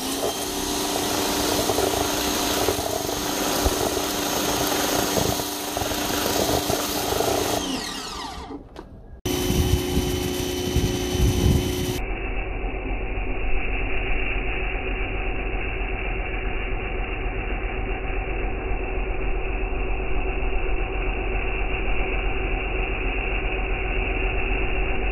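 Electric pressure washer running with a steady motor hum while its wand sprays water, later through a foam cannon; the sound changes abruptly twice around the middle, at edits.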